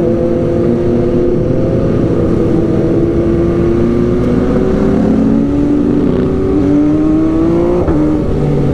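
Sport motorcycle engine running at road speed with wind rush, its note slowly sinking in pitch, stepping down about five seconds in and jumping briefly near the end.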